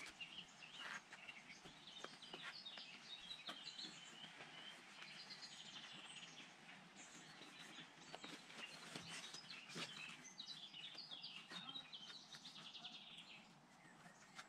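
Faint woodland birdsong: several songbirds chirping and trilling, over a soft hiss with a few faint clicks.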